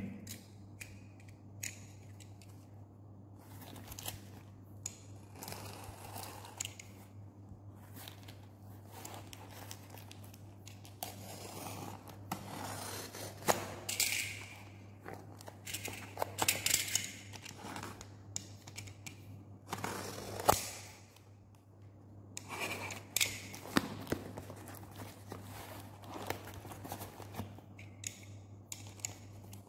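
Utility knife slitting packing tape on a cardboard box, with irregular scraping, tearing and rustling strokes and a few sharp clicks as the box is handled. A low steady hum runs underneath.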